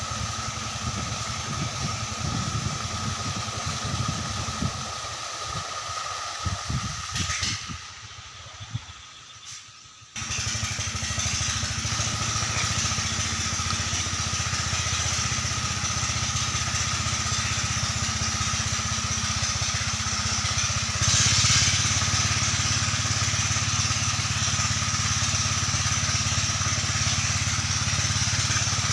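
Engine of a river sand suction pump running steadily. It drops lower for about two seconds some eight seconds in, then comes back abruptly at full level.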